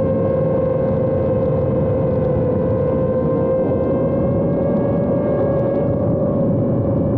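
Drone's electric motors and propellers running with a steady high whine over a rushing noise, the pitch rising slightly from about halfway through.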